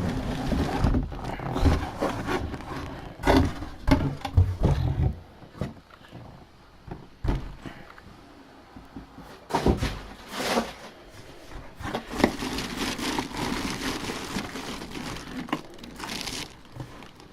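Packaging being handled close to the microphone as a full-size football helmet is worked out of its box: irregular rustling and crinkling with scattered knocks and thumps.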